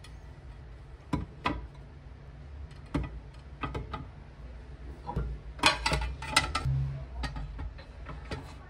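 Ceramic dinner plates clinking and knocking against one another as they are set upright, one by one, into a wooden plate rack. The clinks come singly at first, then in a quick busy cluster about halfway through, then a few more near the end.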